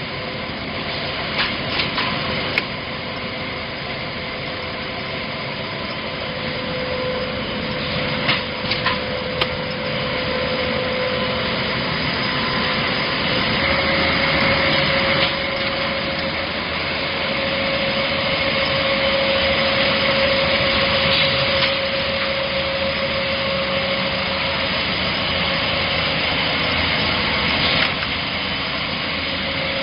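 A CNC paper tube winding machine running steadily, with a held whine that steps slightly higher about halfway through. A few sharp clicks and knocks from the machinery come through near the start, around a third of the way in, and near the end.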